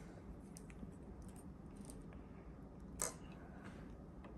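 Faint small clicks and light rattling as multimeter test leads are handled and held against a small thermal fuse, with one sharper clatter about three seconds in.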